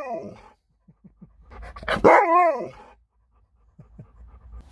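Alaskan malamute 'talking': one wavering woo-woo vocalization trails off at the start, then a second, longer one comes about two seconds in, its pitch wobbling up and down.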